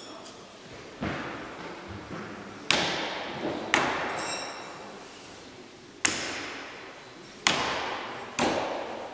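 Throwing knives striking wooden targets, six sharp thuds at uneven intervals, some with a short metallic ring, each echoing in a large hall.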